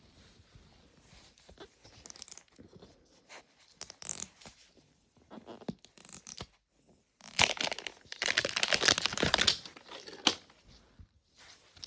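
Plastic packaging being torn open and crinkled by hand while a Mini Brands capsule ball is unwrapped: scattered crackles, then a loud stretch of tearing for about three seconds past the middle.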